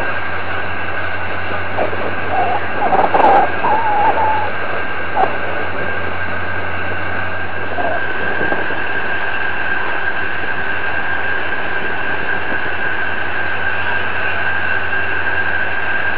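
A mobile crane's engine and hydraulics running steadily as it holds and lowers a marine engine on its slings: a constant low drone with a high whine that grows stronger about halfway through. Brief faint voices a few seconds in.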